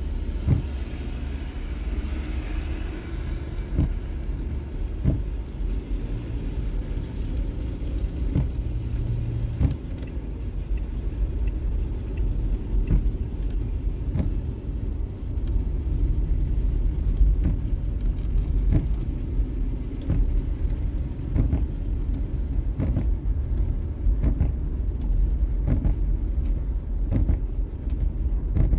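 Low rumble of a vehicle and its tyres crawling over a snow-packed highway, heard from inside the cab, with scattered small clicks and knocks.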